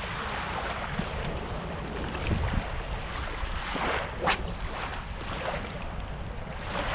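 Small bay waves lapping and washing onto a sandy shore around a beached kayak, with wind on the microphone; one brief louder rushing sound just past four seconds in.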